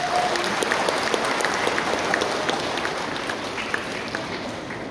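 Audience applauding: dense clapping that starts loud and eases off a little toward the end.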